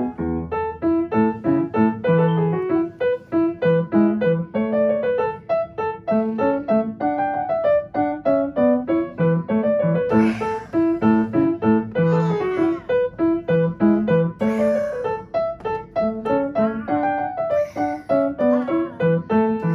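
Upright piano played at a brisk tempo: a quick stream of short, crisp notes from both hands.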